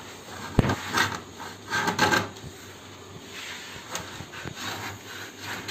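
Scraping and rubbing on a sunmica laminate sheet as it is scored into a circle, with a sharp knock about half a second in and scratchy strokes around one and two seconds in.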